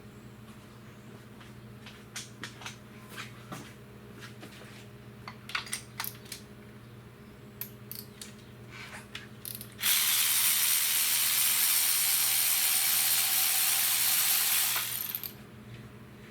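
Ratchet wrench clicking in short runs, as when a spark plug is being worked out of the engine. About ten seconds in, a loud steady hiss starts and lasts about five seconds before cutting off.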